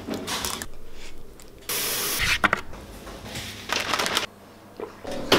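Breakfast handling sounds in short noisy bursts: a spoon in a bowl of granola and milk, then a shaker bottle being shaken hard.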